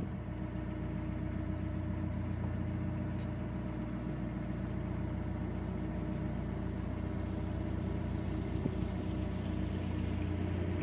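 Narrowboat's inboard diesel engine running steadily at cruising speed, a constant low drone.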